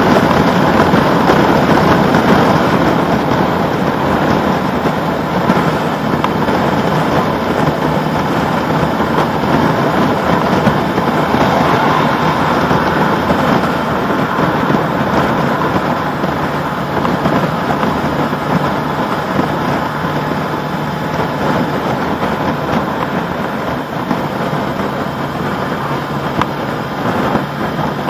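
Honda CB1100RS air-cooled inline-four engine running steadily at cruising speed, heard from on board with heavy wind rush over the microphone.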